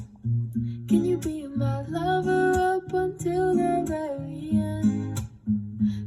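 A song with strummed acoustic guitar and a bass line, with a melody line that may be a voice.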